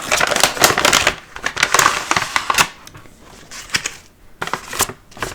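Packaging crinkling and crackling as box contents are handled, dense for the first two and a half seconds, then a few scattered rustles and clicks.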